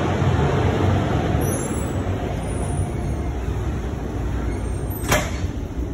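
Steady rumbling background noise with a single sharp knock about five seconds in.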